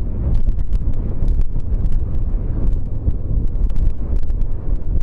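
Strong wind buffeting the microphone of a rider on a motorcycle, a loud, uneven low rumble with crackles, over the bike and road running underneath.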